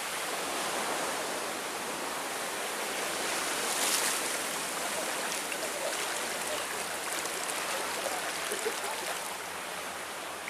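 Steady hiss of sea waves washing on the shore, briefly swelling about four seconds in.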